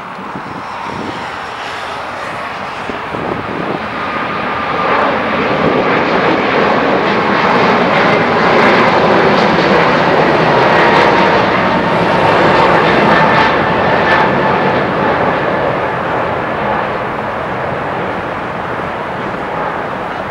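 Boeing 777-200ER twin jet engines at takeoff thrust as the airliner lifts off and climbs out: a steady roar that builds to a peak about halfway through, then slowly fades as the aircraft climbs away, with a faint whine on top near the peak.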